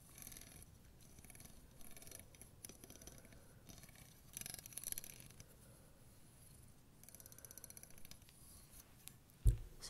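Plastic wide-tooth comb scratching and clicking close to the microphone, with a run of quick ticks, about ten a second, late on, then a single low thump just before the end.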